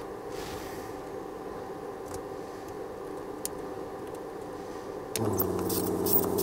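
Steady electrical hum with faint scraping and ticks from soldering work on a relay's lugs. About five seconds in, a small motor starts up with a steady, even buzz and a hiss above it.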